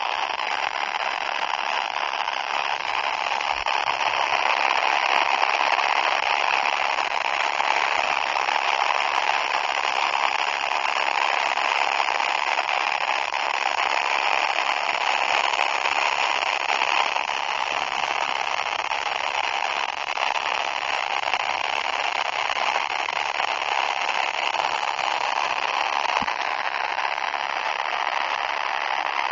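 Distorted poop (fart) sound effect: a loud, harsh crackling noise that runs on without a break.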